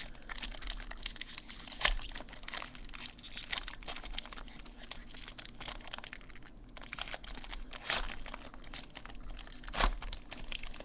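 A trading-card pack's wrapper being torn open and crinkled by hand as the cards are pulled out, with a steady run of rustling and a few sharper crackles.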